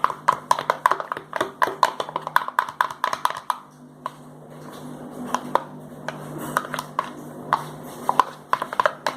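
A small spoon stirring glue and red gouache paint in a little pot, clicking against the pot's sides in quick taps, about four or five a second, for the first three seconds or so, then in slower, scattered clicks. A low steady hum runs underneath.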